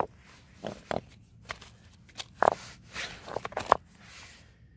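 River stones and gravel clacking and crunching as they are handled and shifted: irregular short knocks, some eight or nine of them, fading out near the end.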